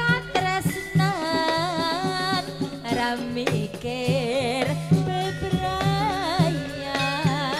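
Live amplified Javanese campursari music through a sound system: a female singer holds long notes with a wide vibrato over a steady drum beat and band accompaniment.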